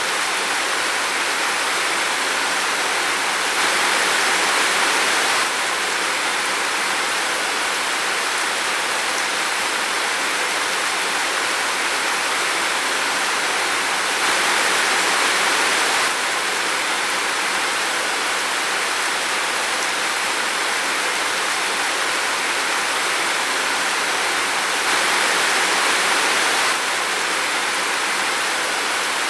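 Steady rain falling in a forest, a continuous even hiss. Three times, about ten seconds apart, it grows slightly louder for about two seconds.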